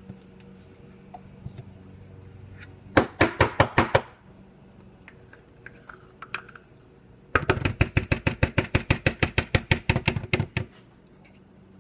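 A kitchen utensil clicking or tapping rapidly and evenly, about seven strikes a second. It comes in two runs: a short one about three seconds in and a longer one of about three seconds starting around seven seconds in.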